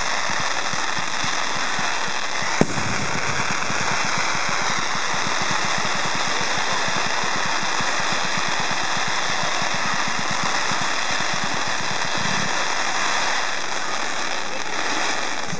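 Fireworks crackling densely and without a break, with one sharp bang about two and a half seconds in.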